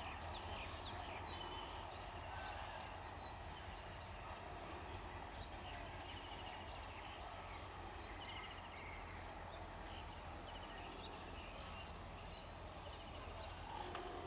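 Birds chirping and trilling over a faint, steady low rumble. Right at the end a diesel locomotive's horn starts to sound.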